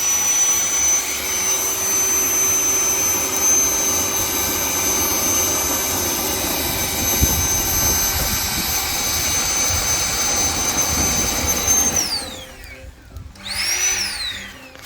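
Electric air pump running with a steady high whine, blowing air onto barbecue charcoal to liven the fire. About twelve seconds in it is switched off and the whine falls away; a short rising-and-falling whine follows near the end.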